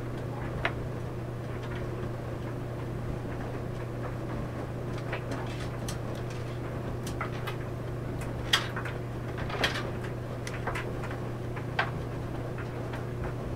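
Clothes dryer running with a steady low hum while the laundry tumbles in the drum, giving irregular soft knocks and clicks, with a few sharper knocks in the second half.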